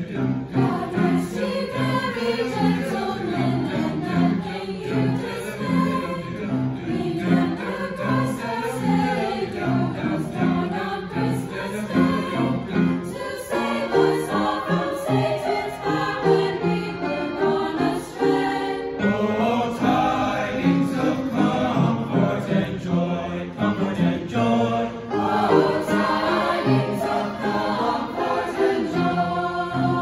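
Mixed choir of young voices singing in harmony, with piano accompaniment playing steady repeated chords underneath.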